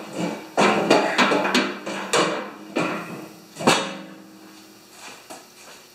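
Steel auger of a John Deere TRS 24 snowblower clanking and knocking against its housing as it is turned by hand and worked into place. Several sharp metallic knocks ring out over the first four seconds, then the handling goes quieter.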